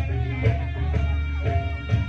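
Live band music accompanying a reog dance, with held pitched tones over a steady bass and a beat struck about twice a second.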